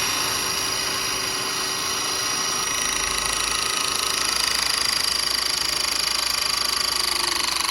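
ECT-12042 battery-powered 12-tonne hydraulic crimping tool running its electric motor and hydraulic pump to crimp a cable lug: a steady machine whine whose high tone drops slightly in pitch in the second half.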